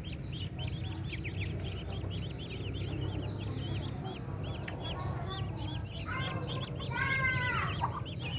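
A crowd of ducklings peeping continuously, many short high peeps overlapping, with a louder, longer call a little past the middle. A steady low hum runs underneath.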